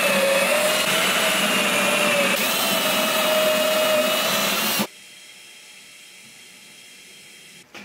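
Cordless drill spinning a stepped pocket-hole bit through a Kreg jig into plywood: a steady high whine that stops abruptly after about five seconds, leaving only a faint steady hum.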